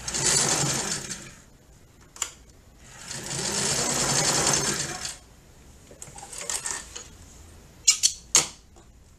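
Domestic sewing machine running in two short bursts, about a second and a half and then about two seconds, stitching a zigzag seam. A few sharp clicks come near the end.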